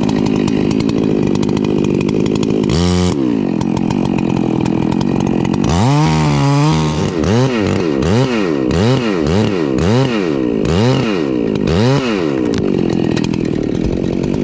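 Chainsaw running in a cut through a tree trunk. It revs briefly about three seconds in, then from about six seconds its pitch rises and falls over and over, roughly twice a second, before settling back to a steady run near the end.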